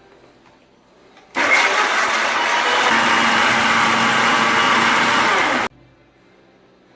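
Mixer grinder (mixie) running for about four seconds, grinding chopped onion, garlic, ginger and whole spices into a paste; it starts abruptly and cuts off abruptly.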